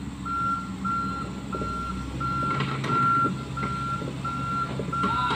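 Backup alarm on heavy construction machinery beeping at one steady high pitch, eight beeps about three every two seconds, over a diesel engine running steadily underneath.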